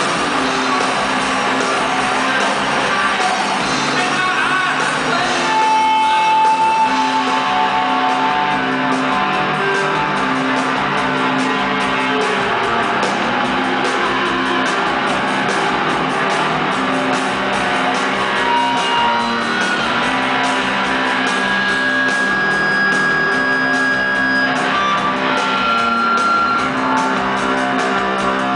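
Rock band playing live in a large hall: electric guitar and drums, with long held high notes that sustain for a few seconds near the start and again in the second half.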